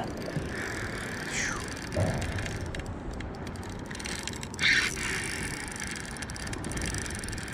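Spinning reel's drag clicking rapidly as a running hooked fish pulls line off against it. There is a brief louder rustle about four and a half seconds in.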